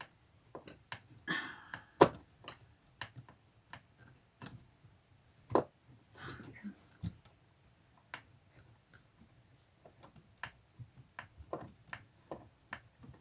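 Irregular sharp clicks and taps, about one a second, with a couple of brief rustles: hand work driving a screw into a curtain rod bracket in a tight spot.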